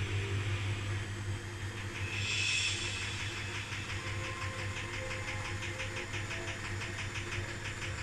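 Beko 7 kg washing machine running on its Daily Quick wash programme: a steady low hum, with a brief hiss about two seconds in.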